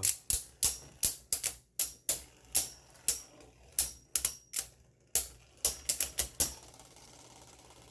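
Beyblade Burst tops clashing in a plastic stadium during a battle: a run of sharp, irregular clacks, about two or three a second, that stop about six and a half seconds in, leaving only a faint hiss.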